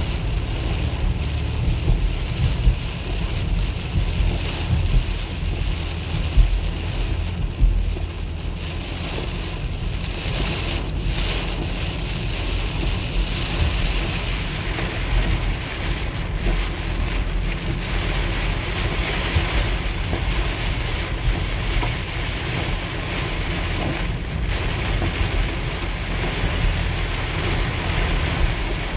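Heavy rain beating on a minivan's windshield and roof, heard from inside the cabin over a steady low rumble of tyres on a flooded road. The rain hiss grows heavier about ten seconds in.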